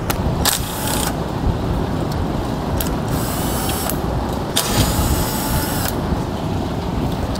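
Cordless power driver spinning a 3/8 socket to back out bolts from a steel actuator housing, in three short runs, the last about a second and a half long.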